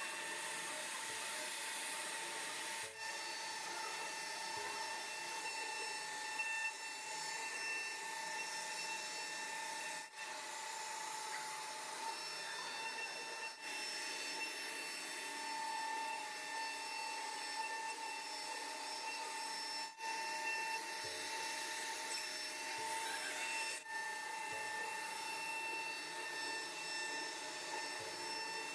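Power tool running with a steady high whine while cutting into board with a rasping sound, broken by a few brief dips.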